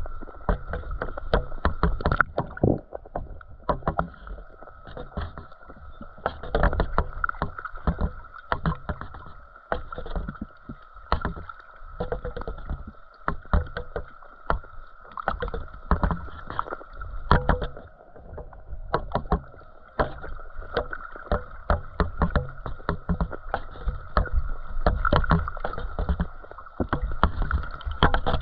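Muffled underwater sound picked up through a camera's waterproof housing: frequent irregular clicks and knocks over a low rumbling water noise, with a steady high hum throughout.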